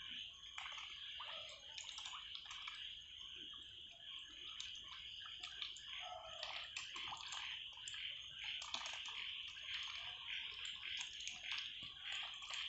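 Domestic ducks dabbling in shallow muddy water: many small splashes and quick bill clicks as they sift the water, over a steady high-pitched background drone.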